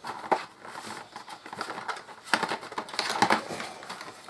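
Cardboard box and plastic packaging being handled as a tray of plastic range rulers is pulled out: a run of irregular clicks, taps and crinkles.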